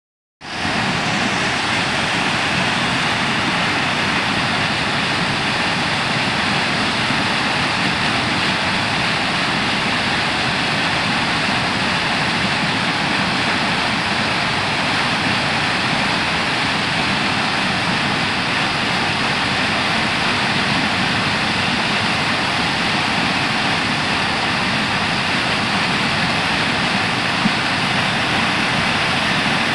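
Muddy floodwater of a river in spate pouring over a weir: a loud, steady rush of churning water.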